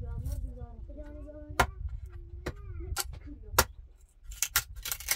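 A small hatchet chopping into the end of a wooden plank, trimming it. The sharp strikes come at uneven intervals, a few single blows and then several in quick succession near the end.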